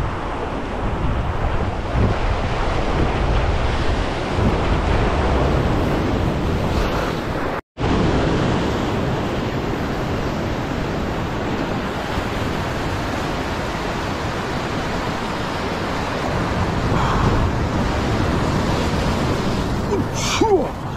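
Sea waves surging and breaking over a sandstone rock ledge, a steady wash of surf with wind buffeting the microphone. The sound cuts out for a moment about a third of the way through.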